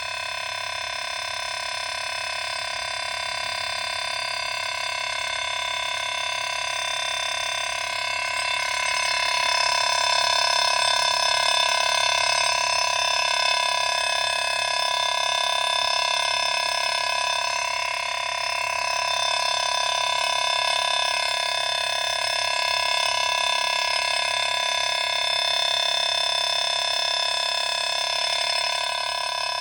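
Dense, steady chorus of night insects and frogs, many pitches held at once without a break, swelling slightly about a third of the way through.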